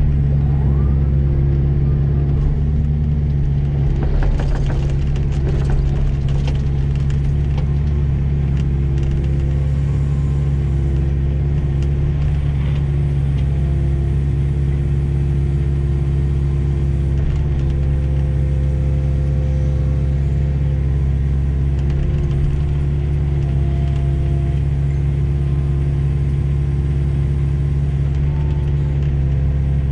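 Diesel engine of heavy yard machinery running steadily at an even speed, a deep constant hum with a few faint clicks and rattles around four to five seconds in.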